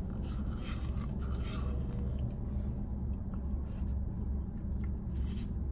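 A low, steady hum in a car cabin, with faint scratchy rustles over it.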